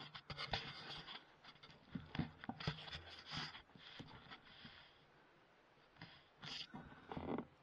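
Faint scattered scrapes and clicks, busiest in the first few seconds, a short pause, then a few more near the end.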